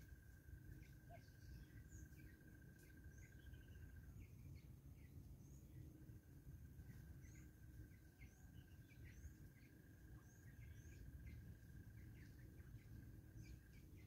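Faint outdoor ambience of small birds giving scattered short chirps, over a steady high trill that stops for about two seconds partway through, and a low rumble.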